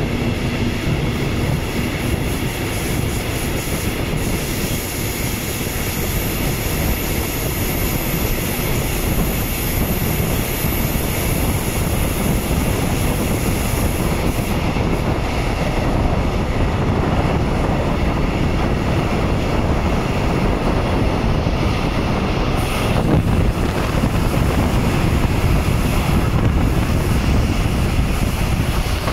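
Locomotive-hauled regional express train running through curves, heard from an open window of one of its coaches: a steady rumble and rattle of the wheels on the rails, with a high, steady squeal of the wheels on the curving track.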